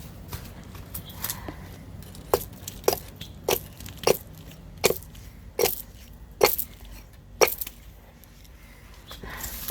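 Axe chopping into a wooden log: about eight sharp blows in a steady rhythm, a little under a second apart, starting about two seconds in and stopping a couple of seconds before the end.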